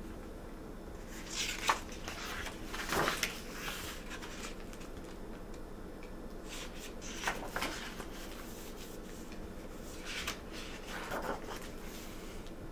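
Pages of a hardcover picture book being turned and handled: a few soft paper rustles and light taps, over a faint steady hum.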